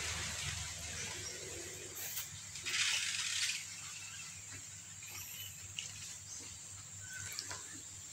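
Cat lapping water from a plastic basin, faint small clicks. A low rumble fades out over the first two seconds, and a short hiss of noise comes about three seconds in.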